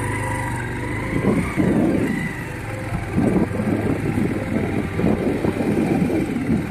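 Motorcycle engine running at low speed: a steady hum at first, then, from about a second in, mixed with loud, irregular rumbling noise.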